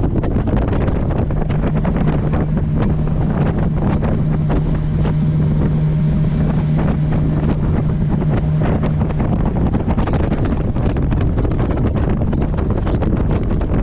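Motorboat under way, with heavy wind buffeting the microphone over the rush of the boat. A steady low engine hum comes in about a second in and fades out about nine seconds in.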